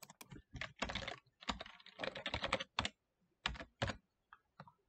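Typing on a computer keyboard: a quick run of keystrokes that thins out to a few scattered taps near the end.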